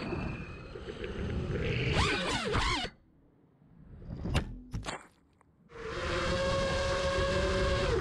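Five-inch FPV quadcopter's Emax ECO II 2306 brushless motors whining, the pitch rising and falling with throttle changes. The sound cuts off about three seconds in, a sharp knock comes in the short quiet gap, and near six seconds the motors come back, holding a steady whine.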